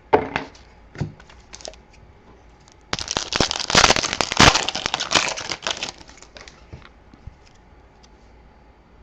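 A few light clicks, then about three seconds in a burst of crinkling and tearing lasting around three seconds: a plastic trading-card pack wrapper being torn open and crumpled by hand.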